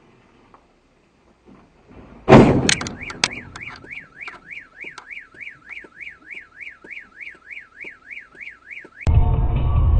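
A sudden loud crash with a few clattering knocks, then a car alarm wailing, its pitch sweeping up and down about three times a second. Near the end it is cut off by loud music.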